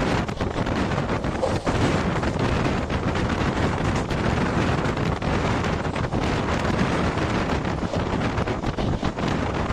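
Strong wind buffeting the microphone over the steady running noise of a passenger train travelling at speed.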